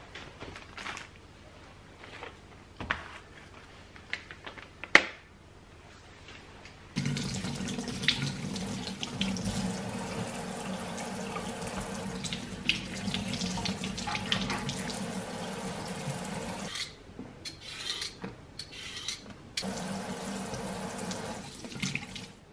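Kitchen tap running into a sink, turned on about seven seconds in, shut off for a few seconds near the three-quarter mark, then running again briefly. Before the water starts there are light clicks and knocks of kitchen things, with one sharp click.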